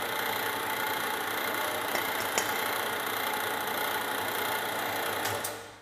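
Small portable metal-cutting band saw running steadily, its electric motor humming under the whir of the blade. Near the end it is switched off and quickly runs down.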